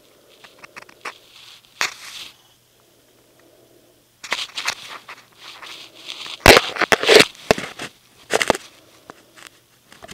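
Close rustling and crackling of a blanket and carpet as a pet rat and a hand move about against the phone, with a cluster of loud clicks and knocks past the middle.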